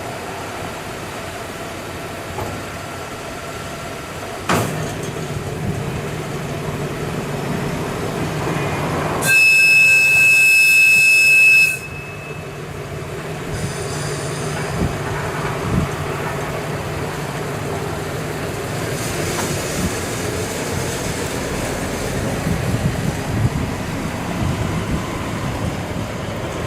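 TMC200 snow-removal track motor car running along the rails with its engine going steadily. Near the middle its whistle gives one blast of about two and a half seconds, a loud high steady tone with several overtones.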